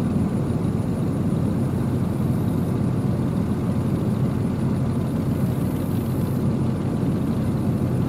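Engine of a lifted first-generation Dodge Ram mud truck running steadily as it crawls through shallow mud, with no revving.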